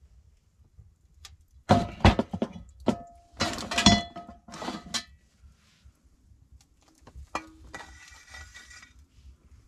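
Clinks and knocks of metal cookware and an enamel plate. Several sharp clinks come in three short clusters between about two and five seconds in, then a single knock a little after seven seconds.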